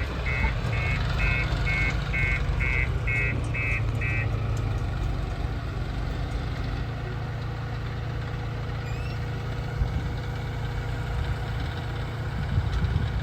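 Heavy diesel machinery engine running steadily at a low hum. Over it, a rapid electronic beeping, about three beeps a second, stops about four seconds in.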